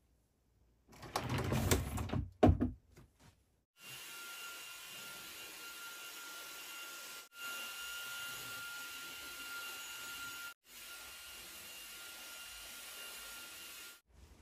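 A few seconds of knocking and clattering, then a household electric appliance runs steadily with a whirring motor noise and a thin high whine. The sound breaks off briefly twice.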